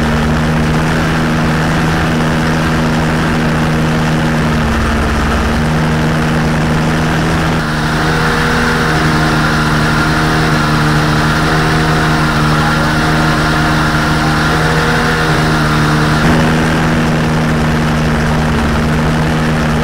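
Rotax 503 two-stroke twin engine of a Challenger 2 ultralight running steadily with its propeller turning. Its note sits higher from about 8 s in and settles back to the first pitch about 16 s in.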